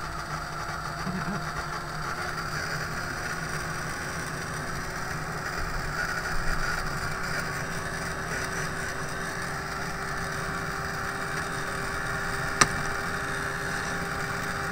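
Handheld craft heat gun running steadily, its fan blowing hot air to melt away stray hot-glue strings. One sharp click near the end.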